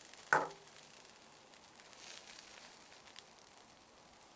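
A perforated metal tart ring is set down with one sharp knock that rings briefly. Then come faint rustles and light ticks as a gloved hand lifts another ring off a baked pastry near the end.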